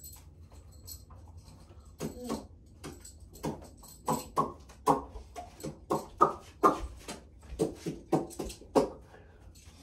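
A toddler's short vocal sounds: a quick run of brief cries and grunts, about two a second, starting about two seconds in and stopping near the end.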